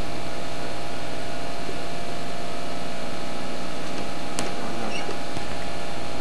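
Steady hiss with an even electrical hum, unchanging throughout, and a faint tick about four seconds in.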